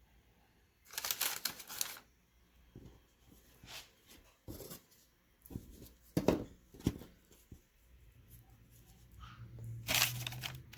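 Kitchen handling sounds: a few short rustles and light knocks, the loudest about a second in and near the end, as small sliced dough pieces are set on a baking pan.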